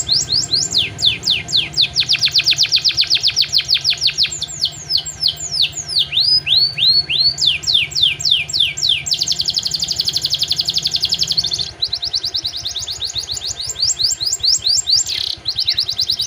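Domestic canary singing fast trills of rapid downward-sweeping notes, with a buzzing rattle about nine seconds in that breaks off near twelve seconds into more quick trills. The song is a canary's full repertoire, including phrases learned from prenjak and ciblek.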